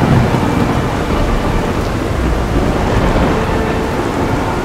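Heavy rain pouring steadily, with a deep rumble of thunder that is loudest right at the start.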